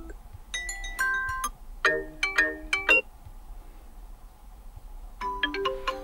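Xiaomi 13 Pro default ringtones previewing through the phone's speaker: short electronic melodies of bright beeping notes, two phrases in the first three seconds, a pause, then another ringtone starting about five seconds in.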